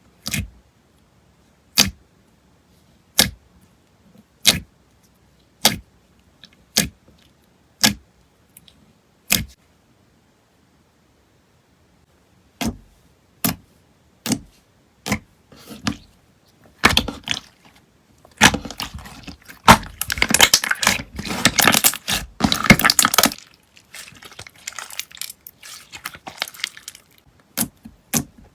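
Slime being pressed and squished by hand, giving sharp crackling pops: evenly spaced single pops about one a second at first, then after a short pause a run of dense crackling in the second half.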